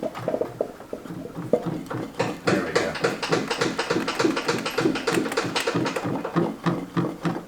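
Rapid metal-on-metal tapping and clicking, several strikes a second, getting busier about two seconds in, as a rusted part on a Monarch 10EE lathe is worked loose.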